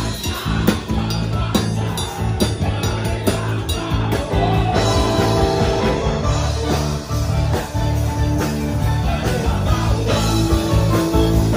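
Live band music: a drum kit and electronic keyboards playing a rock-style song, the drum strokes sharpest in the first few seconds before the keyboard lines fill out.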